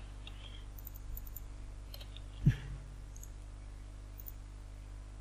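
Computer mouse and keyboard clicks, with one much louder thump about halfway through, over a low steady hum.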